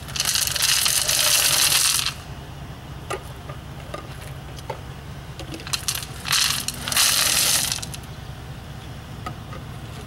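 Gravel poured from a cup into a clear plastic tube, the stones clattering down onto the gravel already inside. There are two pours, one in the first two seconds and another about six seconds in, with a few stray pebbles clicking in between.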